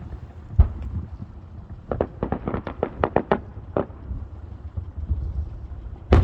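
Aerial fireworks bursting: a loud bang about half a second in, then a quick run of about ten sharp cracks, one more shortly after, and another loud bang at the end, with a low rumble between the reports.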